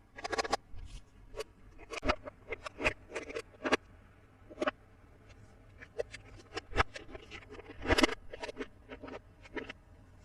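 Small plastic toy playset pieces being handled, making irregular sharp clicks and taps, with quick clusters of clicks near the start and about eight seconds in.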